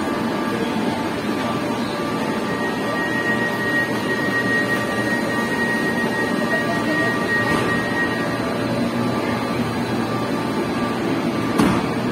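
Rio metro train standing at an underground platform, its equipment giving a steady hum and whoosh. A thin high whine runs for several seconds in the middle, and there is a short knock near the end as the train begins to pull away.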